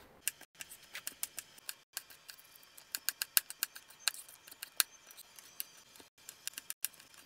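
Chef's knife slicing bell peppers into strips on a plastic cutting board: a run of quick, irregular clicks as the blade cuts through the peppers and taps the board, a few strokes a second.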